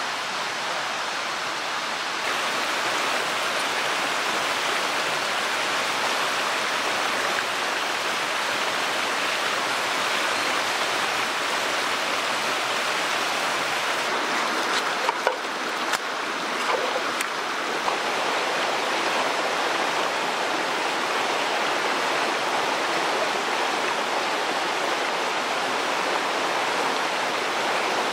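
Mountain stream rushing steadily over rocks. A few brief knocks or clicks sound over it about halfway through.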